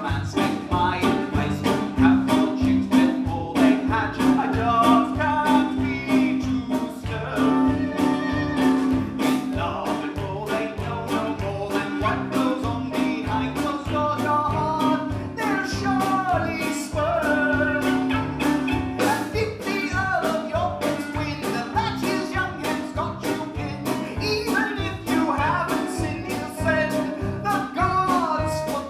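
Live band playing an instrumental break in an upbeat roots-style song, with a steady beat, a held low note and a wavering melody line above it.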